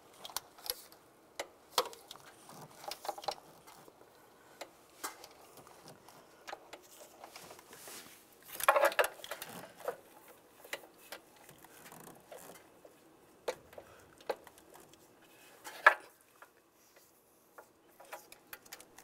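Scattered clicks, taps and short rattles of tools and parts being handled under a pickup truck's hood. A louder rattling clatter comes about nine seconds in, and a single sharp click near sixteen seconds.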